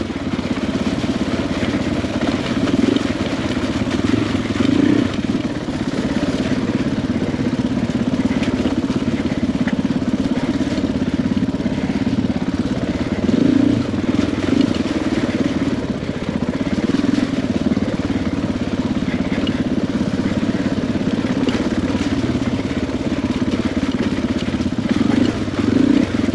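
KTM 500 EXC-F dirt bike's single-cylinder four-stroke engine running at low, steady revs while ridden, with a few short throttle blips.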